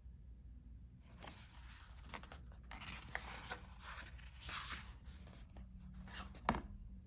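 Paper rustling as a picture book's page is turned and pressed flat by hand, starting about a second in, with a short sharp knock near the end.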